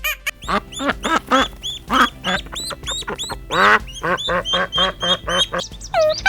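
Ducks quacking in a rapid run of short calls, several a second, with one longer call about three and a half seconds in.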